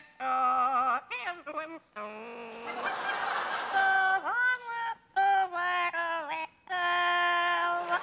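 Yellow-naped amazon parrot singing a song: a run of clear, held notes stepping up and down in pitch in short phrases, with a rough, hissy stretch about two seconds in.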